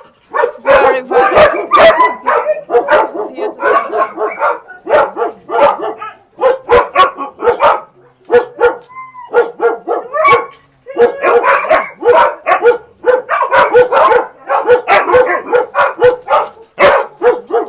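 Dogs barking over and over, several barks a second, with a few short pauses.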